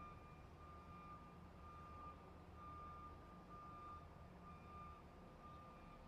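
Truck reversing alarm beeping, one beep about every second, each a steady single tone lasting about half a second, faint over a low engine rumble.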